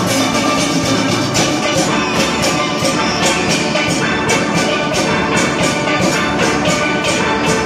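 Steel pan band playing together, many pans struck with sticks in a fast, steady rhythm.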